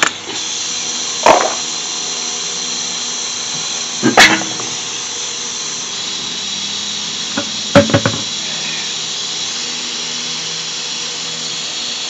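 Three clunks of a car's steel wheel and tire being pulled off the rear hub and handled, over a steady mechanical hum with a high whine.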